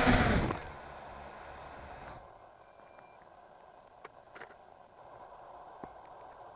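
Brushless motors of an MJX Bugs 3 quadcopter, resting on the ground, whining and then spinning down to a stop about half a second in. After that there is only faint hiss and a few light ticks.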